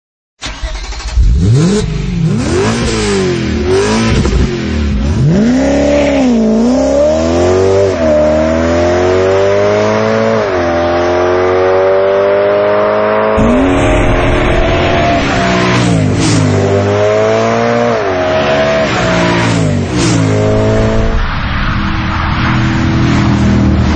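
BMW M3's V8 engine through an Akrapovic titanium exhaust, first revved in quick blips, then run up in several long rising pulls that each drop back, settling to a steady note near the end.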